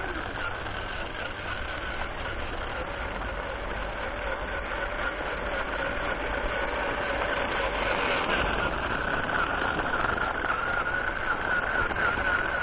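Small electric motor of a homemade toy tractor running with a steady, slightly wavering whine, a little louder in the second half.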